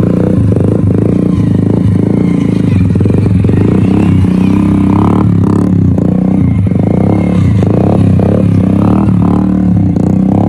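Small motorcycle engine running loud at steady, held revs while the bike is ridden on its back wheel in a wheelie.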